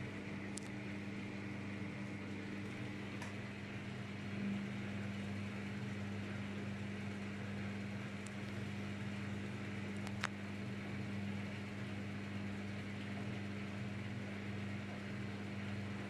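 Daewoo DWD-FT1013 front-loading washing machine in test mode, its motor humming steadily while the drum turns the laundry at low speed. A single sharp click comes about ten seconds in.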